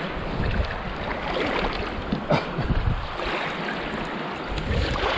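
Shallow river rapids rushing over rocks close to the microphone, a steady wash of moving water, with one short sharp sound a little over two seconds in.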